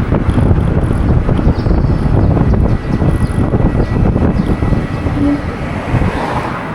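Loud, gusting low rumble of wind buffeting the microphone.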